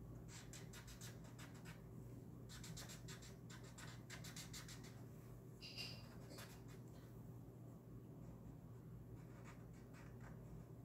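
Faint scratchy rubbing of a black Expo dry-erase marker's felt tip on paper, quick back-and-forth strokes colouring in a small wheel, in short spells with pauses between them. A brief high squeak about six seconds in.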